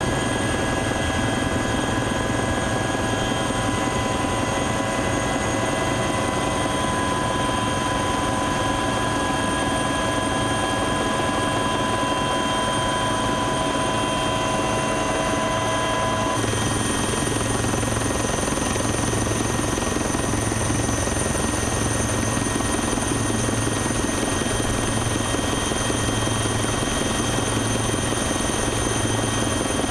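Helicopter in flight, heard from inside the cabin with the side door open: a loud, steady engine and rotor noise with several high whining tones. About halfway through, some of the whine tones drop out and a slow low throb comes in, about one beat a second.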